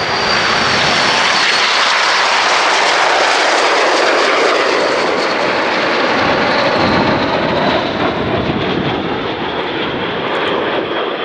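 Airplane flying past, loud, with dense engine noise throughout and a high whine that slowly falls in pitch as it passes.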